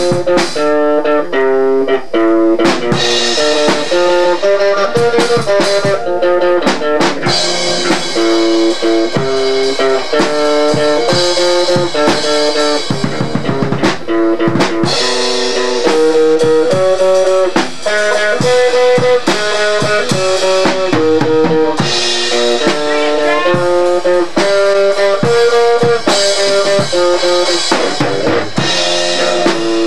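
Guitar and drum kit playing together in a bluesy jam, the guitar running quick melodic lines over steady drumming.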